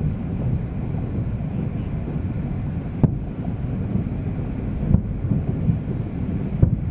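Distant fireworks banging three times, about two seconds apart starting midway, over a steady low rumble of wind on the microphone.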